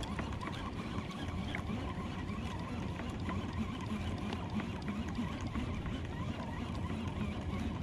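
Steady noise of water moving against a kayak's hull on the open sea, with no distinct events standing out.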